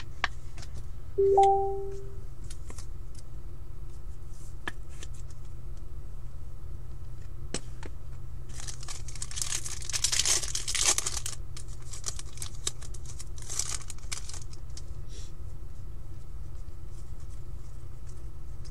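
Foil trading-card pack wrapper tearing and crinkling as a pack is opened, in two stretches about eight and thirteen seconds in, with light clicks of cards being handled in between. About a second in, a short pitched tone lasting about a second.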